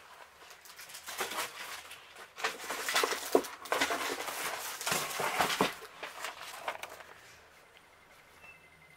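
Rustling and crinkling of plastic product packaging being handled, in irregular bursts for several seconds before it dies away.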